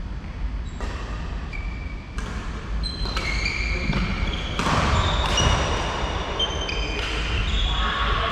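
Badminton rally: racquets striking a shuttlecock, sharp hits every second or two, with short high squeaks of sports shoes on the wooden court, echoing in a large hall.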